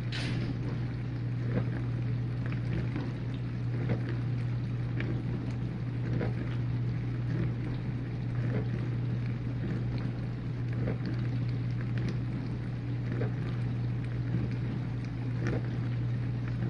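Whirlpool dishwasher running mid-cycle: a steady low hum with a haze of water spraying inside the tub, and a faint swish that repeats a little more than once a second.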